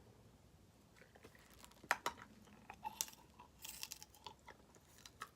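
Faint eating sounds of snow crab: scattered clicks and short crackles of crab shell being broken open, with chewing close to the microphone.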